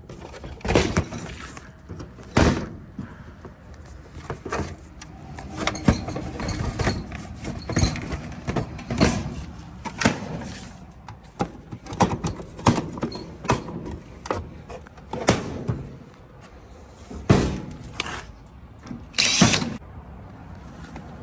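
Irregular knocks, clicks and clunks of metal dryer panels, parts and hand tools being handled during a repair, with a longer scraping noise near the end.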